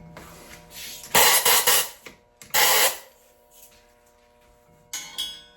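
Compressed-air blow gun hissing in two blasts, the first about a second long and the second shorter, blowing sanding grit out of a brake master cylinder bore after honing with emery cloth; a brief weaker puff comes near the end.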